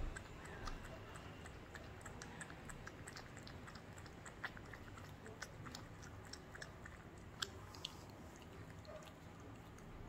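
Cats eating soft dried-pollack pieces in broth from small ceramic bowls: quiet wet chewing, with many small irregular clicks and a few sharper ones.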